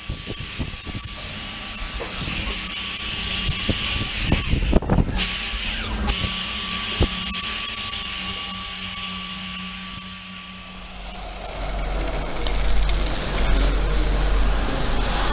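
Electric rotary polisher running with its pad pressed against a painted truck door panel, a steady motor whine with pad noise. The whine stops about three-quarters of the way through, leaving a low rumble.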